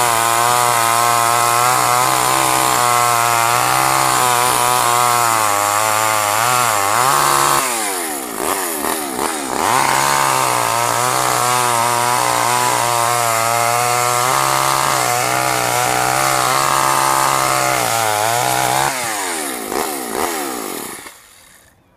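Small Craftsman gas chainsaw running at high revs while cutting wood; the dull chain chews rather than cuts. The revs sag about 8 seconds in and pick up again, then fall away near the end until the engine stops.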